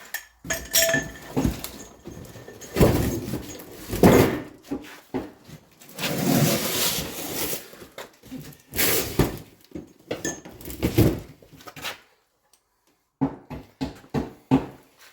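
Hand tools working on truck suspension bolts: irregular metal clanks, knocks and strained scraping, then a quick run of ratchet clicks near the end.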